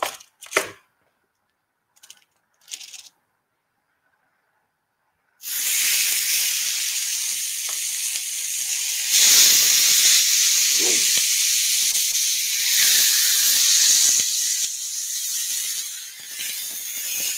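A few short knocks, then about five seconds in chermoula-marinated chicken kebabs go onto a hot ridged griddle pan and sizzle loudly, the sizzle growing louder a few seconds later as more skewers are laid on: raw chicken being seared.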